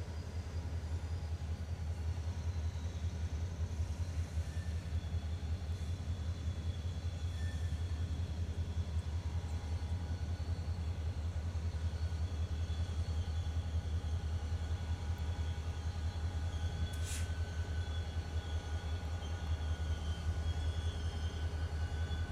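Diesel locomotive running with a steady low rumble as it moves slowly with a train of covered hopper cars, faint thin high tones over it. A single short sharp clank about seventeen seconds in.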